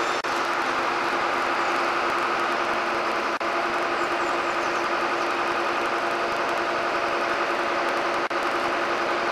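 Crane truck's engine and hydraulic drive running with a steady hum while its hook is handled, broken only by three momentary dropouts.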